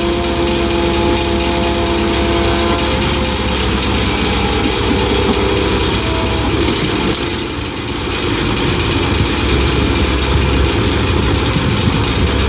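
Komatsu PC130-8 hydraulic excavator's diesel engine running steadily, with a brief dip in level a little past halfway.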